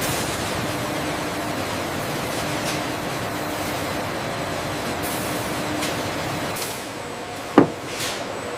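Steady hiss and hum of running food-processing machinery, with one sharp knock near the end.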